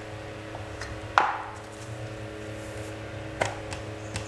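Rolling pin working semolina dough thin on a board, with a few knocks, the loudest about a second in and another near the end, over a steady low hum.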